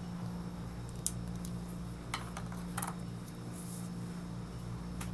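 Steady low electrical hum, with a sharp click about a second in and a few softer clicks and rustles a little later, as a tobacco pipe is handled and puffed.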